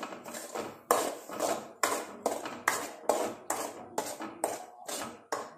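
A metal spoon scraping and knocking against an aluminium kadai, about two to three strokes a second, as ground green masala paste is stirred and fried in oil.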